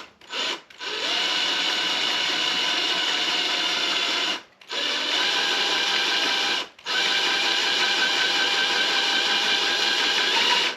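Power drill boring into the aluminium swingarm of a Honda CBR600RR. After a few quick trigger blips the drill runs steadily in three long runs, broken by two short pauses.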